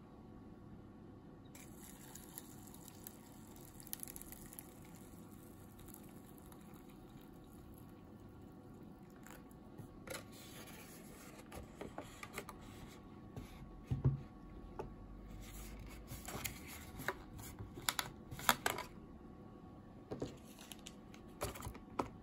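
Hot water poured into a paper instant-ramen cup, a soft hiss starting about a second and a half in and lasting a few seconds. Then the paper lid is folded down and pressed shut and a soup sachet is laid on it: a run of crinkles and light taps, loudest in the second half.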